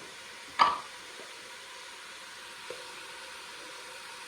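Onions and spices frying in a pot: a steady, even sizzle. A single sharp clink sounds about half a second in.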